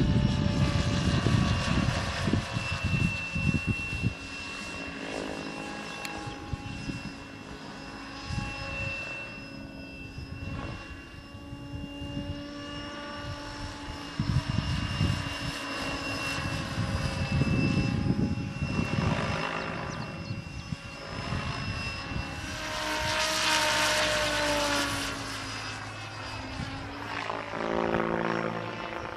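Diabolo 700 RC model helicopter in flight, its drive whining steadily while the rotor blades whoosh in loud swells as it swings through manoeuvres. Near the end the pitch of the whine bends as it passes by.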